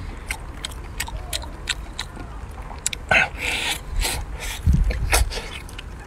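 Wet clicks and smacks of a person eating cooked octopus, chewing and sucking on the soft flesh while tearing the head apart by hand. A few louder breathy puffs come about three seconds in.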